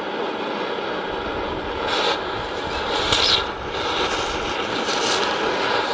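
Steady engine-like mechanical running noise, with a few short hissing bursts about two, three and five seconds in.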